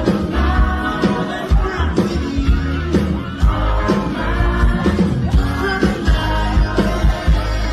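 Pop music with a singing voice over a strong bass line and a regular drum beat.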